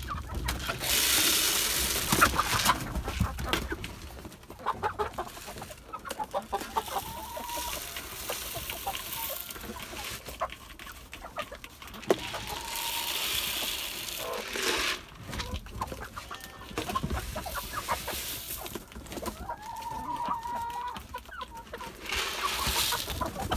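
A flock of chickens clucking and calling, with a few spells of rustling noise.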